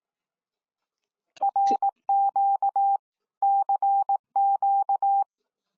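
Electronic emergency alert tone: a single steady beeping pitch keyed on and off in short and long beeps that sound like Morse code. It starts about a second and a half in and comes in four groups.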